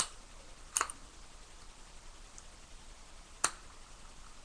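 Zippo lighter lid snapping open and shut: three sharp metallic clicks, one at the start, one just under a second in and one about three and a half seconds in.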